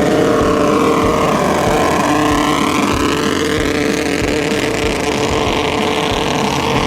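Racing speedboat engines of the Jet 650 class running hard at steady high revs, several engine tones at once, with wind on the microphone.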